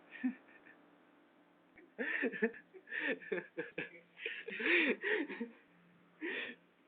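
Indistinct voices in short bursts, with some chuckling, from about two seconds in.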